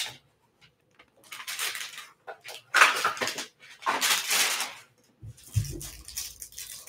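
Packaging crinkling and rustling as a trading-card hanger box is opened and its plastic-wrapped card pack handled. It comes in three or four short bursts, with softer handling knocks near the end.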